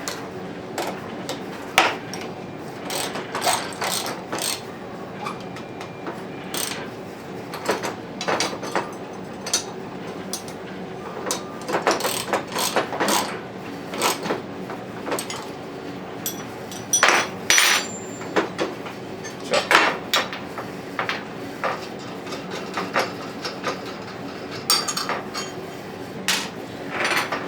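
A wrench tightening nuts onto bolts of a drive's motor plate: irregular sharp metallic clicks and clinks of the tool on the hardware, coming in clusters.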